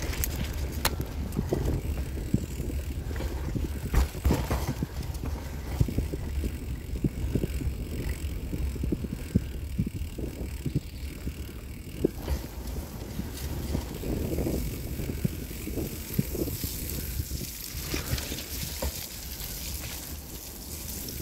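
Bicycle rolling along a bumpy dirt forest track: a steady low rumble with frequent short knocks and rattles as the bike jolts over the ground.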